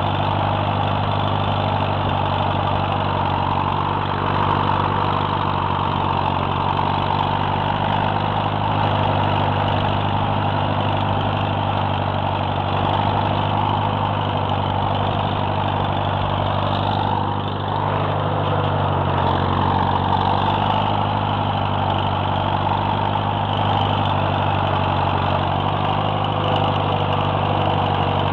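Farmall Super MTA tractor's four-cylinder engine running steadily under load, pulling a Graham-Hoeme chisel plow through the soil. The engine note dips slightly about two-thirds of the way through.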